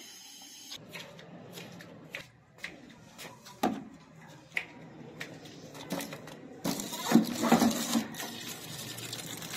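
Scattered light knocks and clatter of a plastic tub being handled, then, about seven seconds in, water gushing from a tap into a plastic tub.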